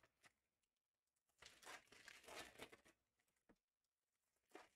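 Faint crinkling of plastic shrink wrap on a sealed trading-card box being handled: a rustle lasting about a second and a half shortly after the start, and a short one near the end.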